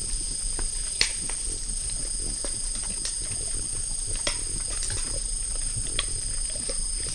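White-lipped peccaries feeding on fruit and moving through leaf litter: scattered sharp cracks, crunches and rustles, the loudest about a second in, over a steady high-pitched whine.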